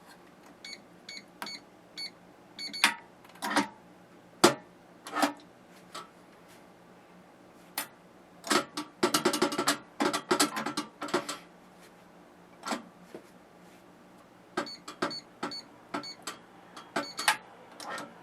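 Electronic safe keypad: five button presses with short beeps as the code is entered (four digits and the A key), then a clattering run of clicks and knocks from the door and lock, and five more beeping key presses about 15 s in.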